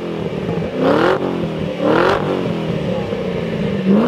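Stock-exhaust 2005 Ford GT's supercharged 5.4-litre V8 revved while stationary: three quick blips, each climbing sharply and dropping back, the second followed by a slow fall before the last blip near the end.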